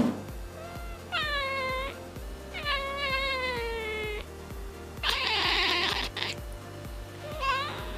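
A cat yowling over background music with a steady beat: a drawn-out meow about a second in, a longer one with slowly falling pitch around three seconds in, a harsh, raspy cry around five seconds in, and a short meow near the end.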